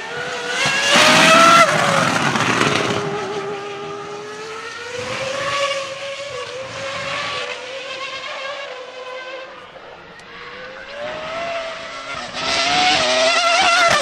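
Williams-BMW FW26's 3-litre V10 Formula One engine at high revs as the car passes, loudest about a second in, with the pitch dropping as it goes by. The sound fades, then the pitch rises again into a second loud pass near the end.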